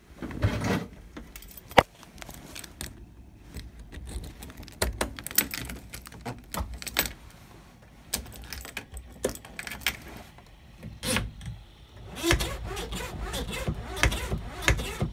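Keys jangling on a key ring hanging from the ignition switch, with irregular sharp clicks and rustles of hands working the cockpit controls.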